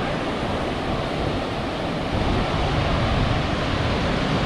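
Ocean surf breaking and washing up the beach as a steady rushing noise, with wind rumbling on the microphone.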